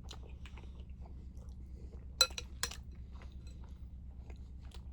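A person chewing food: soft, irregular mouth and crunching sounds, with two louder crunches a little over two seconds in.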